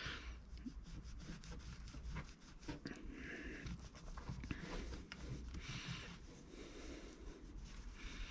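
Faint rubbing and scrubbing of a cloth rag over a small metal Brembo brake caliper clip in gloved hands, with small clicks of the metal part being handled.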